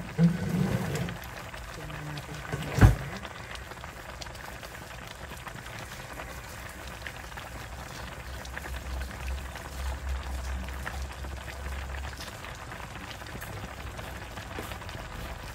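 Chicken sotanghon soup simmering in a pot on a gas stove, a steady bubbling hiss. One sharp knock about three seconds in is the loudest sound, and a low rumble comes in for a few seconds in the middle.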